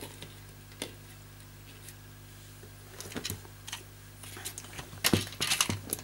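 Hair dryer parts being handled and refitted by hand: scattered light clicks and knocks of the mica-and-wire heating element and plastic housing, busiest in the second half, over a low steady hum.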